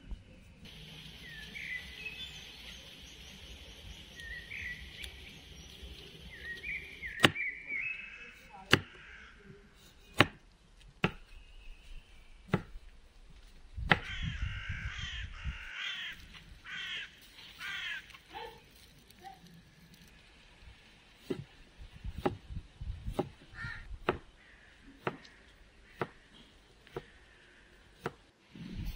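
A knife chopping carrot and cucumber on a thick wooden log-slice board, single sharp knocks about a second or so apart. Birds chirp in the first seconds and crows caw around the middle.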